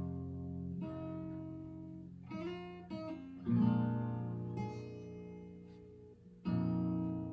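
Solo blues guitar intro with no singing yet: chords and bass notes struck and left ringing and fading, with the loudest fresh strikes about three and a half and six and a half seconds in.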